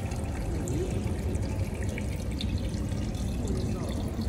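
Steady rush and trickle of water running in an open aquarium tank, with faint voices of people nearby.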